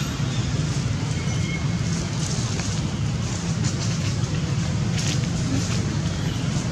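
Steady outdoor background noise: a low rumble with an even hiss over it and a few faint rustles, with no clear animal calls.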